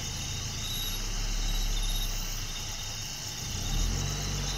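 Vehicle engine idling with a steady low hum, growing a little louder about a second in and again near the end.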